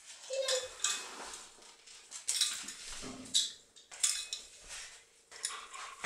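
Footsteps of a person walking in slide sandals, with a dog's paws and claws moving on the floor around their legs: a string of irregular short scuffs and clatters.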